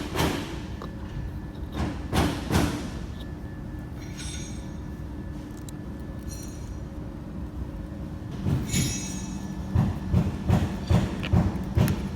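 Metal clanks and knocks from work on metal parts over a steady mechanical hum. There is a brief high squeal of metal rubbing near the middle, then a run of five or six evenly spaced knocks, about two a second, near the end.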